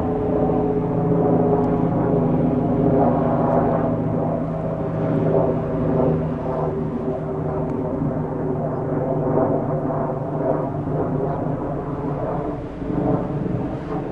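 Bell 429 twin-engine helicopter flying overhead, its four-blade rotor and turbine engines making a steady drone with a faint pulsing rotor beat.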